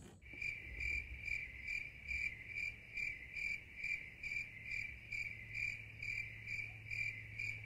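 Insect chirping in a steady, even rhythm, a little over two pulses a second on one high note, over a low steady hum.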